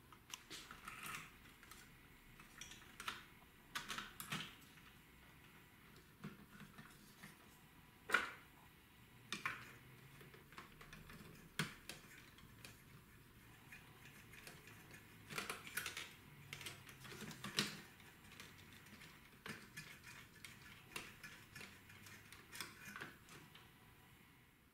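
Faint, irregular clicks and taps of small plastic and metal parts on a Philips FW68 cassette deck mechanism as it is handled and put back together, with the loudest click about eight seconds in.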